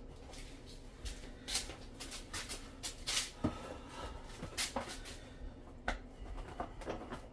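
Irregular rustling, light knocks and crackles of packaging being handled, as a replacement water filter cartridge is taken from its box, over a faint steady hum.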